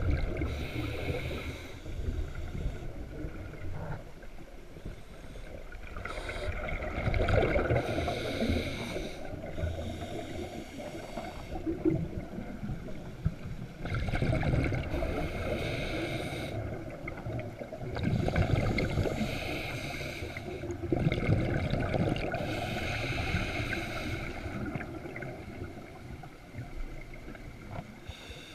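Muffled underwater water noise picked up by a GoPro in its waterproof housing as the swimmer moves through the sea, rising and falling every few seconds.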